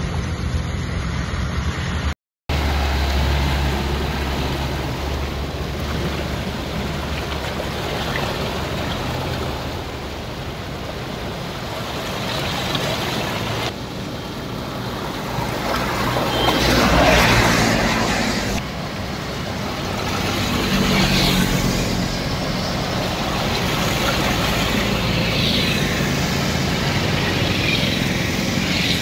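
Vehicles driving through floodwater running across a road: tyres swishing and splashing over a steady rush of water. A scooter engine runs briefly at the start, and one vehicle passing close, about halfway through, is the loudest.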